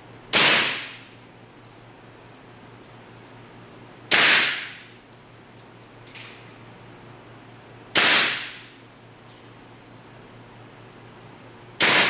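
WE M16A3 open-bolt gas blowback airsoft rifle on green gas firing four single shots of 0.2 g BBs, evenly spaced about four seconds apart, each a sharp crack with a short fading tail.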